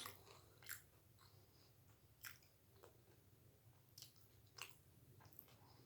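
Faint close-up chewing of doi fuchka, crisp fried puri shells with mashed potato and yogurt filling, with soft crunches every second or so. A low steady hum runs underneath.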